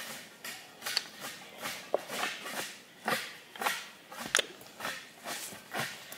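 Footsteps on a forest floor, a person walking at a steady pace, about two steps a second, with a few sharp small clicks among them.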